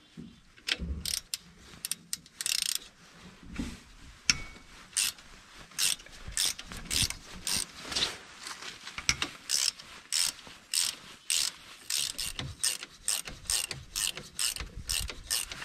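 Hand ratchet wrench clicking in short rapid runs as bolts are backed out of a tractor's three-point hitch mounting.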